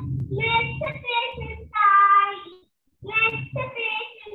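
A young child singing, heard over a video call, with a short pause a little past halfway.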